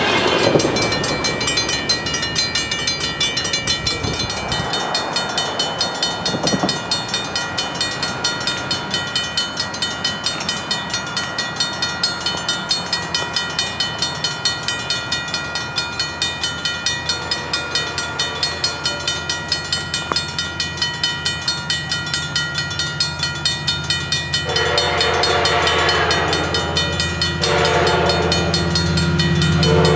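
Grade-crossing warning bell ringing steadily at about two strokes a second while the noise of a passed train fades in the first few seconds. An approaching Coaster diesel locomotive's rumble builds, and its horn sounds two long blasts near the end.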